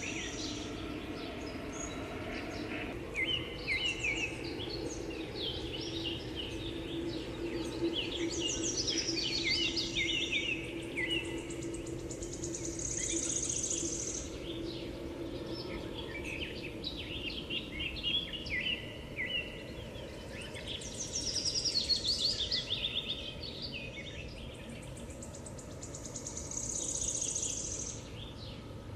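Outdoor birdsong: many small birds chirping and twittering in quick runs of short, mostly falling notes. A high insect buzz swells and fades every several seconds, over a faint steady low drone.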